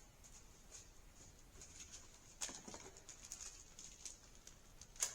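Faint rustling and light clicks of a new shop light fixture and its packaging being handled, with a soft knock about two and a half seconds in and another near the end.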